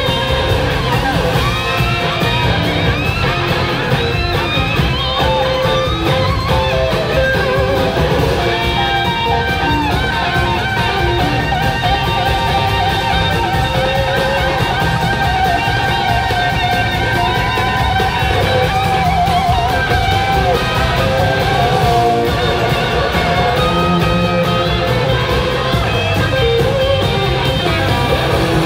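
Live rock band playing an instrumental section: electric lead guitar with gliding, sliding notes over bass and drums, heard from within the audience.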